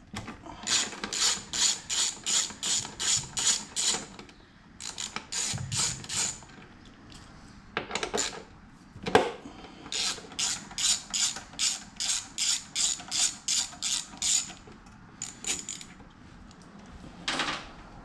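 Hand socket ratchet clicking in quick runs, about four clicks a second with short pauses between runs, as it backs out the 8 mm bolts of a motorcycle's front fork-leg cover. About halfway through there is one louder single snap.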